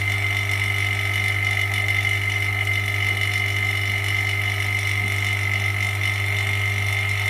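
Vacuum pump of an LCD separator machine running steadily, holding the screen down on the hot plate by suction. It makes a constant low hum with a thin, steady high whine above it.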